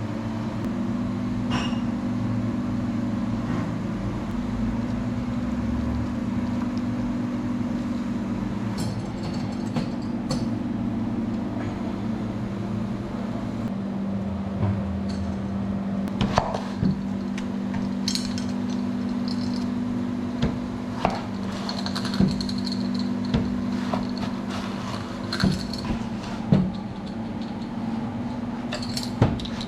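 Kitchen cooking sounds: a steady low hum, with irregular sharp clinks and knocks of utensils coming more often in the second half.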